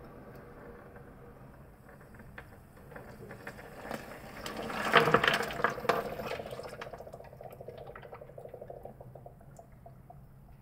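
Water washing over and through a model sand dam as it breaches, swelling to a loud splashing rush about four to six seconds in, with clicks of mini clay bricks tumbling into the water, then easing off.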